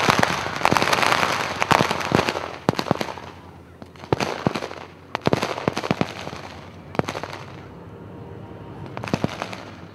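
A demolition charge going off on a beach: the noisy roar of the blast dies away over the first two seconds, then scattered sharp pops and cracks follow at irregular intervals.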